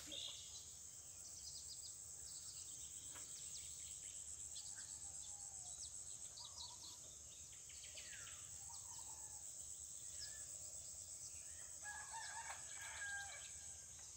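Faint rural morning ambience: a rooster crowing, with small birds chirping and a steady high-pitched insect buzz underneath. The crowing is clearest in the last few seconds.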